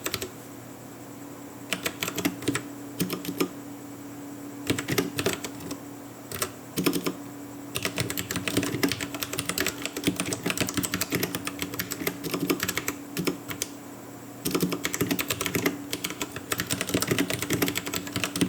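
Typing on a Royal Kludge RK84 mechanical keyboard: fast runs of key clicks in bursts with short pauses between them, over a faint steady low hum.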